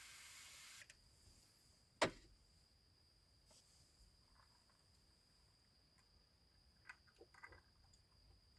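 A steady hiss cuts off abruptly about a second in, then one sharp knock about two seconds in; otherwise near silence with a faint, steady high-pitched tone and a few faint ticks near the end.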